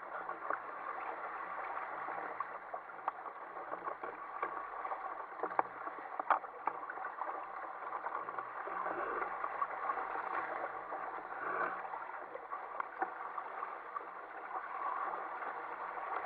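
Water rushing and splashing along the hull and outrigger floats of a sail-rigged Ocean Kayak Prowler 13 moving under sail through choppy sea, with sharp slaps of water here and there.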